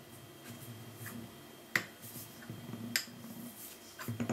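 A metal screwdriver clicking sharply against the casing of a small DC motor as the motor's magnets pull it in, three times, about a second apart.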